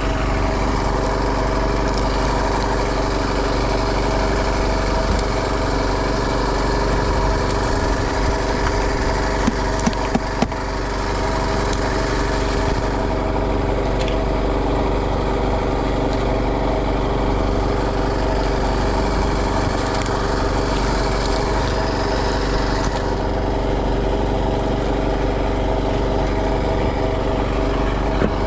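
Small fishing boat's engine running steadily at a constant speed, with a few sharp knocks about ten seconds in.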